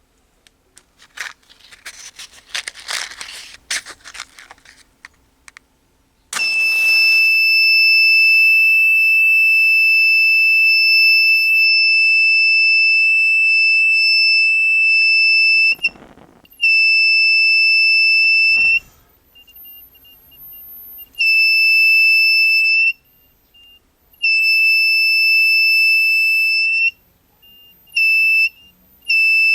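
A few seconds of scratchy clicking, then the buzzer of a homemade LM324 fire-sensor alarm sounds a steady high-pitched tone. The tone cuts off and comes back several times, in ever shorter spells near the end; each spell is the sensor detecting a flame.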